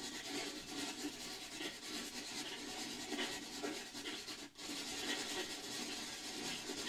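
Choppy static hiss from a ghost-hunting communication app playing on a phone, a steady rasping noise that keeps fluttering, with a brief dropout about halfway through.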